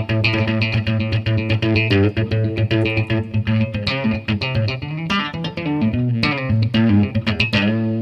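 Electric guitar played through a small combo amp: a quick run of picked notes over a steady low droning bass note, the lick he calls the "didgeridoo effect".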